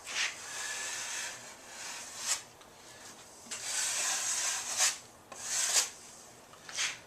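Drywall taping knife spreading joint compound across a drywall patch seam, in several long scraping strokes with short pauses between them.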